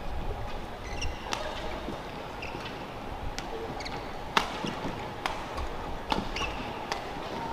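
Badminton rackets striking the shuttlecock in a rally: sharp hits about once a second, the loudest a smash about four and a half seconds in, with short squeaks of shoes on the court between them.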